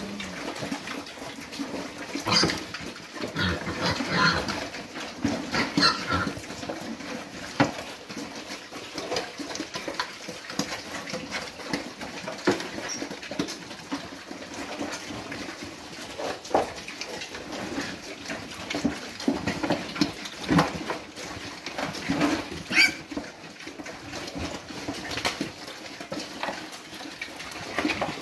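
A group of pigs eating at a low feeder, with grunts and noisy chewing and slurping of wet feed made of ration, soy hulls and whey. A few sharper, louder sounds stand out about two, four, six and twenty-three seconds in.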